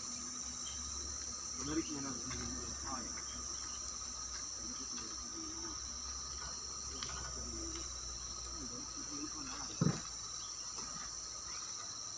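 Steady, shrill insect chorus, with faint voices in the background and one short thump about ten seconds in.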